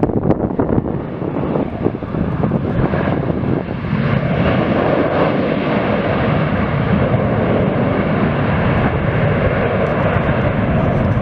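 Airliner engines running, a steady rushing noise that grows louder about four seconds in and then holds.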